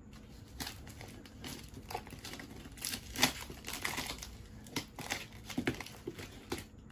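Scissors cutting through packing tape and cardboard on a parcel box, with crinkling and scraping of the tape and card. The snips and scrapes come at uneven intervals, and a sharp snip about three seconds in is the loudest.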